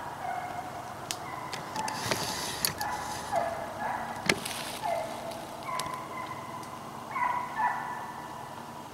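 Hunting hounds baying while running deer on a dog drive: a string of short bawls about once a second, some falling slightly in pitch, with a few sharp snaps and a brushy rustle about two and four seconds in.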